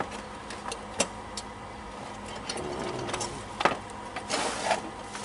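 Light metallic clicks of drum brake shoe hardware being handled by hand, with a short scrape a little after the second click, over a faint steady hum.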